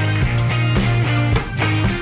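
Background rock-style music with guitar and a steady beat.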